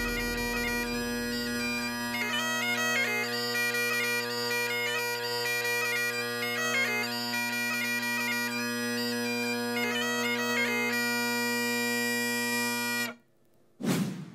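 Great Highland bagpipe playing a tune on the chanter over its steady drones, cutting off suddenly about a second before the end, followed by a brief whoosh.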